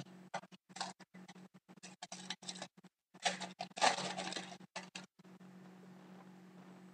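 Foil wrapper of a trading card pack crinkling as it is torn open, with a run of light clicks and rustles from cards being handled. The crinkling is loudest a little past the middle.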